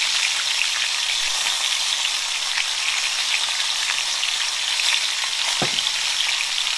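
T-bone steaks searing in hot olive oil in a grill skillet: a steady, loud sizzle with fine crackling spatter.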